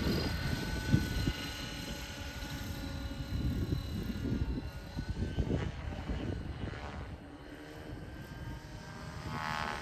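Align T-Rex 550 electric RC helicopter in flight: a thin, steady motor and rotor whine that swells and rises near the end, over a gusty low rumble of wind on the microphone.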